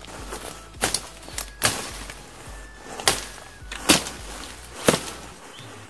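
Albainox machete chopping through brush and branches: about five sharp hacks at uneven intervals, roughly one a second.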